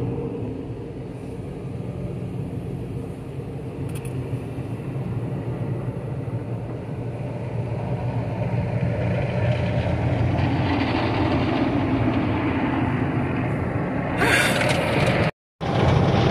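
A car driving: a steady engine hum with road noise that gets louder over the first ten seconds. Near the end there is a short rush of noise, and the sound then cuts off abruptly.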